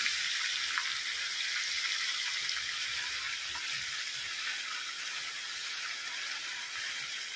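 Fern tops sizzling in hot oil in a small pan on a portable butane stove: a steady hiss that slowly grows quieter.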